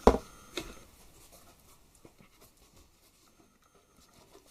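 A cardboard packaging box being opened by hand: a sharp knock at the start and a smaller one about half a second later, then faint rustling as the contents are handled.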